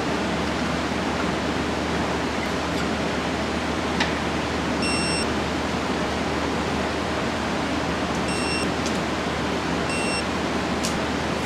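Click-type torque wrench tightening driveshaft flange bolts, with a sharp click about four seconds in and another near the end, under a steady hiss. Three short high beeps sound in the second half.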